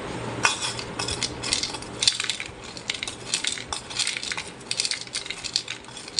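Toy kitchen pieces clattering: small hard pieces rattling and clinking against a small aluminium bowl and a plastic basket, in a quick, irregular run of clicks.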